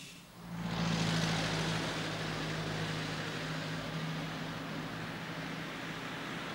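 Road traffic: cars driving along a road, a steady engine hum over tyre noise that sets in about half a second in.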